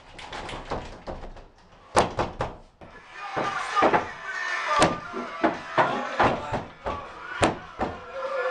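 Fists banging on a door: loud, irregular knocks, with a quick cluster of three about two seconds in and more single heavy bangs later.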